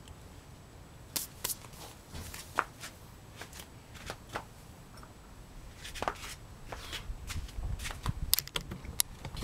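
Scattered light clicks and rustles of someone handling and moving through garden plants, a few sharp ones about a second in and growing more frequent toward the end.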